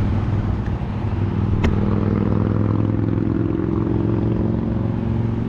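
Vehicle traffic crossing the bridge overhead: a steady low engine drone, with one sharp click about a second and a half in.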